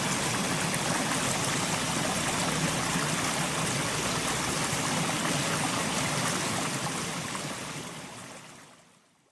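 Mountain stream flowing and gurgling over rocks in a steady rush, fading out near the end.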